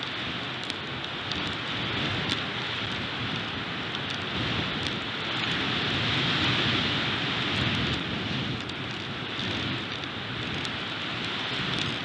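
Strong wind buffeting the nest cam's outdoor microphone: a steady rushing that swells a little in the middle, with a few faint ticks.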